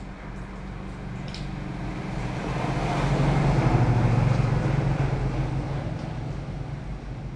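A motor vehicle passing by: a low engine drone with road noise that swells to its loudest about four seconds in and then fades.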